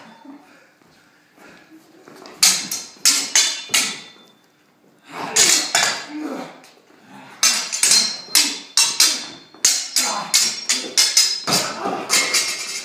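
Metal stage-combat swords clashing in quick flurries of strikes, each hit with a short metallic ring, with brief pauses between the flurries.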